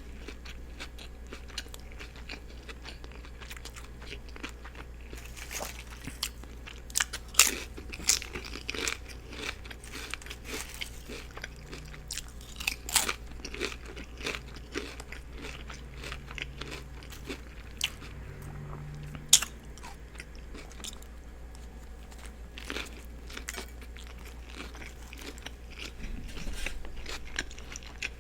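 Close-miked biting and chewing of a turkey and cheese sub: irregular crunches of lettuce, onion and bread, with wet mouth sounds, over a steady low hum.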